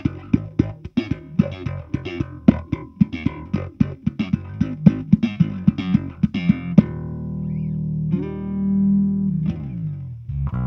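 Fender Precision Bass played through an EarthQuaker Devices Spatial Delivery envelope filter into a Fender Bassman amp and 4x10 cabinet, giving an auto-wah sound. A quick run of plucked notes gives way about seven seconds in to a couple of held notes whose wah tone shifts and falls away.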